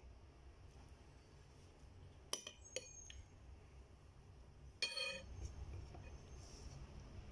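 Cutlery clinking against a plate as someone eats: two light clinks a couple of seconds in, then a louder, ringing clink about five seconds in.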